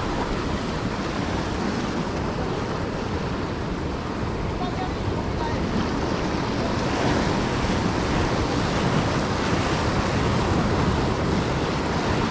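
Sea surf washing steadily along the shore, with wind buffeting the microphone.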